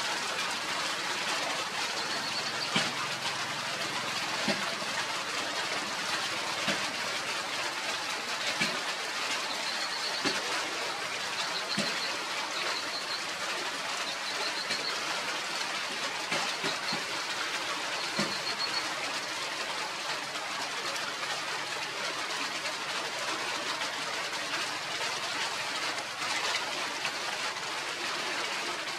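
Steady outdoor background noise with scattered light knocks and a few faint, high chirps in the middle stretch.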